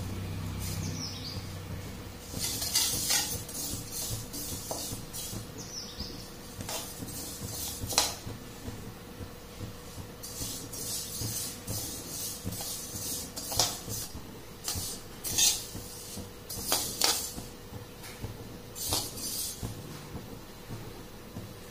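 A steel spatula stirs and scrapes fennel and fenugreek seeds dry-roasting in a kadai: irregular scraping strokes with the seeds rustling, broken by a few sharp clinks of metal on the pan.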